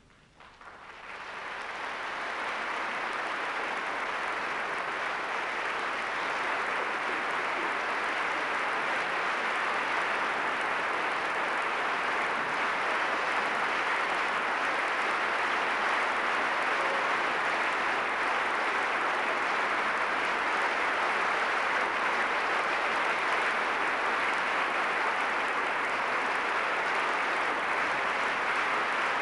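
A large audience applauding. The applause swells from near silence over the first couple of seconds into a dense, steady ovation.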